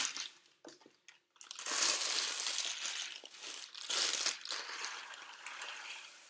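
Rice Bubbles (puffed rice cereal) being poured from the packet into a measuring cup: a crinkling, rustling pour. It comes after a few light clicks, surges again about four seconds in, then fades.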